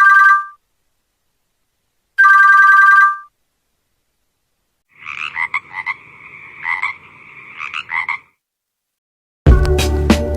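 Nokia 1202/1203 phone ringtones playing one after another. A short two-tone beep ends just after the start and plays again about two seconds in. From about five seconds a warbling, trilling ring runs for about three seconds, and near the end a loud, bass-heavy music ringtone begins.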